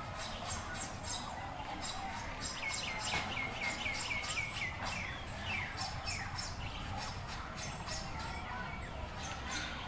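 Small birds chirping over and over, with a quick run of about ten chirps a few seconds in. Underneath is a steady, distant murmur of children's voices from a school classroom.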